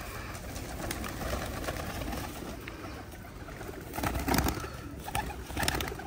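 A flock of domestic pigeons feeding at close range, cooing, with wings flapping. A louder burst of noise comes about four seconds in and again just before the end.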